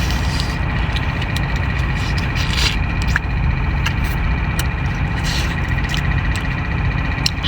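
A steady low rumble with a constant high whine running under it, and scattered short sharp clicks.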